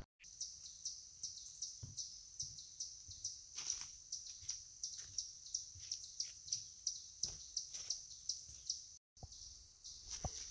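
High-pitched chirping in a steady rhythm, about two to three chirps a second, over a quiet woodland background; the sound cuts out briefly about nine seconds in.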